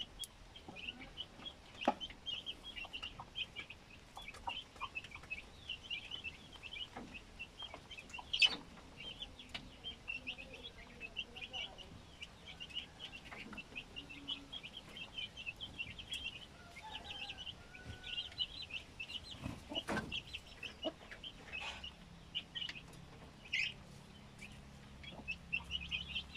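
Several rabbits chewing dry grain from a metal pan: a steady patter of small crisp crunches, with a few sharper clicks.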